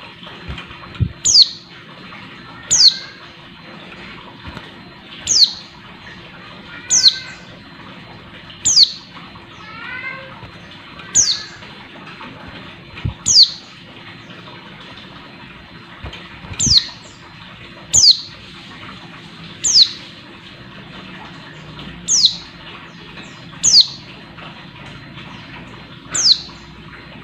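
Female white-eye (pleci) calling: about a dozen short, high notes that each drop sharply in pitch, one every second and a half to two and a half seconds, with a few softer, lower chirps in between early on. This is the call of a female in breeding condition calling for a male.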